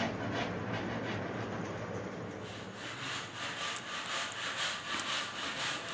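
Rhythmic back-and-forth scraping strokes on wood, about three a second, starting about halfway through: hand sanding or sawing during carpentry on a wooden cupboard.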